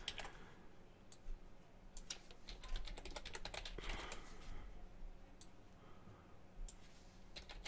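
Faint computer keyboard typing: short, scattered runs of key clicks as a line of code is copied and edited.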